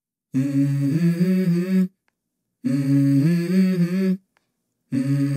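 A hummed vocal melody opening a song: two short identical phrases about a second and a half long, separated by brief silences, each holding a few notes that step up in pitch, with a third phrase starting near the end.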